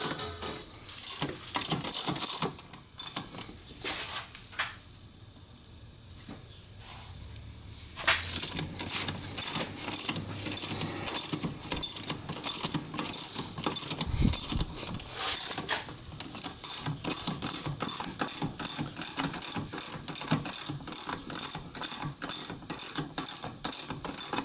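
Ratchet wrench clicking in quick runs of strokes, about four clicks a second, as fasteners are turned during clutch replacement work. It goes quiet for a few seconds before resuming about eight seconds in.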